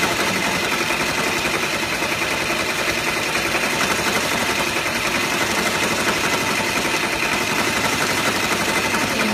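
Multi-needle embroidery machine stitching steadily through a terry towel, a fast, even run of needle strokes that does not change.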